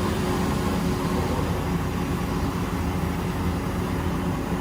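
Large engine running steadily, a continuous low drone with a faint steady tone above it.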